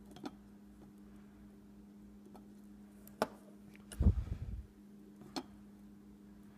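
A few small clicks and taps from soldering work at a circuit board, over a steady low hum, with a dull deeper thump about four seconds in.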